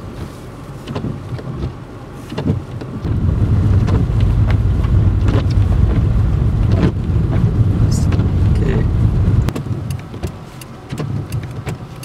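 Car cabin noise while driving on a snowy road: a low hum with scattered light clicks. A much louder low rumble of engine and tyres sets in about three seconds in and cuts off sharply near the end.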